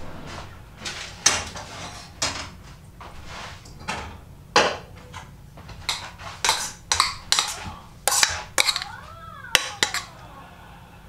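A metal serving spoon clinking and scraping against a stainless steel pot and dishes while food is dished up, in a long series of irregular sharp knocks.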